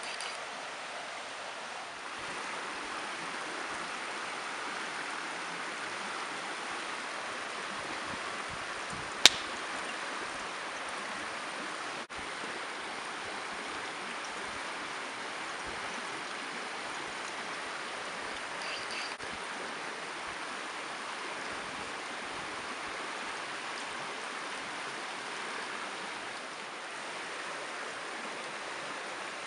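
Steady rushing of a mountain stream, with one sharp snap about nine seconds in.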